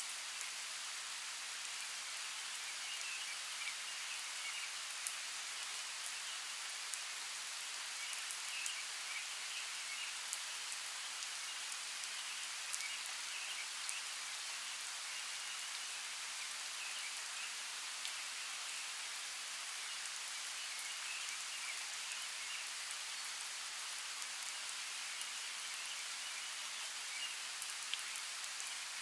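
Steady rain falling, with scattered sharp ticks of individual drops and faint high chirping flickering in the background.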